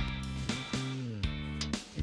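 Background music: guitar with drums.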